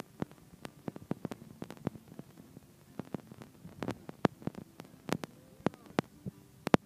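Audio dropout in a recording of live string music: faint hum with irregular sharp clicks and crackles, a few a second, and the music itself almost gone.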